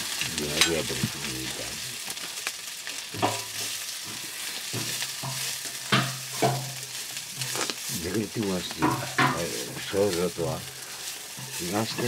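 Food frying in a black iron wok over a wood fire, stirred with a wooden spatula: a steady sizzle broken by irregular scraping strokes of the spatula against the pan.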